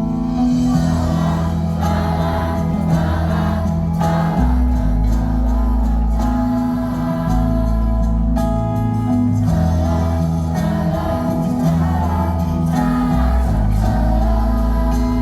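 Audience singing the chorus of a Mandarin pop song together as a crowd, over the song's backing track.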